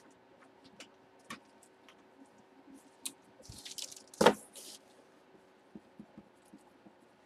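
Handling of a cardboard trading-card box on a tabletop: scattered small clicks and rustles, with one sharp knock about four seconds in.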